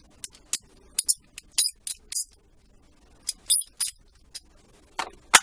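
Chrome 3/8-inch-drive sockets clinking against one another and the ratchet as they are handled and fitted: a dozen or so sharp metallic clinks at irregular intervals, the loudest near the end.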